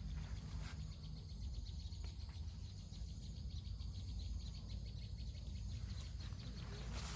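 Insects chirping in a fast, even pulse over a steady low rumble.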